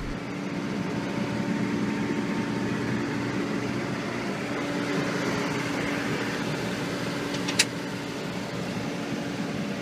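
Terex TLB840 backhoe loader's diesel engine running steadily, with a single sharp click about three quarters of the way through.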